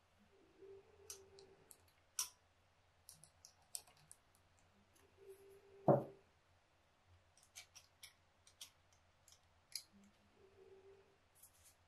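Light clicks and taps of small metal parts and screws being handled while the choke thermostat cap and its bracket are fitted to a carburetor. There is one louder knock about six seconds in.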